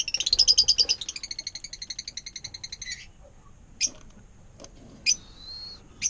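Lovebirds chattering: a fast run of shrill chirps for about three seconds, then a few sharp single chirps and a short whistle.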